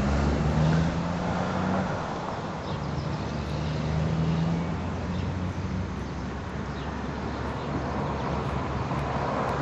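Low, steady hum of a running engine over background traffic noise, its pitch drifting a little.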